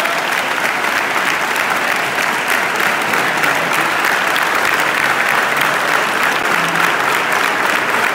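A large audience applauding: dense, steady clapping from many hands at once.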